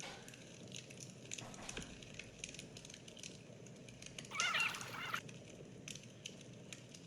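A bird gives one wavering call lasting about a second, about four seconds in, over faint scattered ticking.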